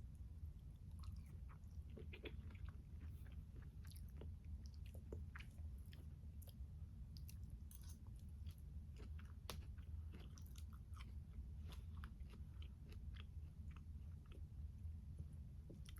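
Close-miked chewing of a tomato, peach and basil salad: many small, irregular wet clicks and light crunches, over a steady low hum.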